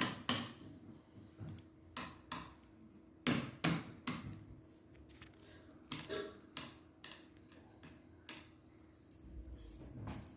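Irregular sharp knocks and clatters of a dish being banged about, a dozen or so strikes with short gaps. It is made as a signal of hunger.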